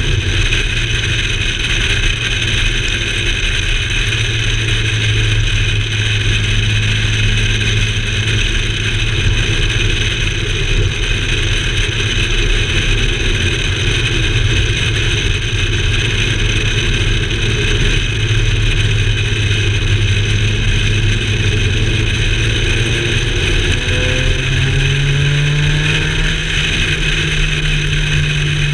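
Car driving along a road, heard from a camera mounted on the outside of the body: a steady engine note under constant road and wind noise. About three quarters of the way through, the engine pitch rises as the car speeds up, then holds at the higher note.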